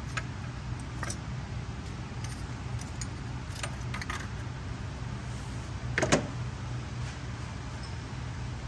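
Metal hand tools clinking and clicking in several sharp separate knocks, the loudest about six seconds in, as the spark plug is removed from the misfiring number 3 cylinder of a 5.3L V8. A steady low hum runs underneath.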